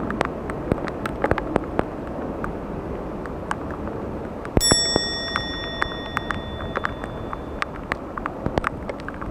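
Outdoor ambience of rain and traffic: a steady hiss with scattered sharp ticks. About halfway through, a single bright bell-like ding rings out and fades over about three seconds.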